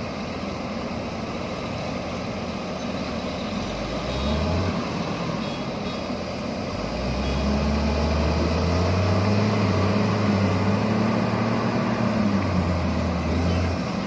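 Diesel engines of a Case motor grader and a JCB backhoe loader running under load as the stuck grader is worked out of soft mud. A deep engine drone swells from about seven seconds in and holds until just before the end, when the grader is free.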